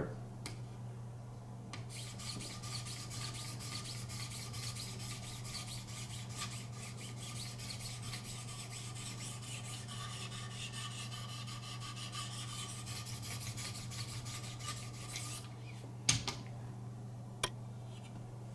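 1,000-grit Wicked Edge sharpening stones stroked along the clamped steel blade of a Benchmade Pagan: a steady scraping rasp of many quick strokes lasting about thirteen seconds. Two sharp clicks come near the end, over a steady low hum.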